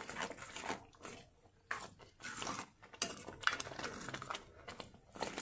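Metal spoon stirring and mashing thick, wet mustard greens in a steel kadai. The spoon makes irregular scraping and stirring strokes against the pan, several a second.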